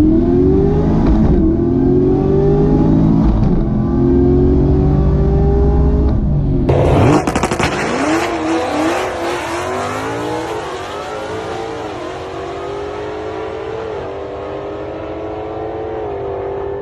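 Chevrolet Camaro LT1's 6.2-litre V8 being revved, its pitch rising and falling several times. About seven seconds in, the sound changes abruptly to a brighter, hissier engine note that wavers, then settles into a steadier run.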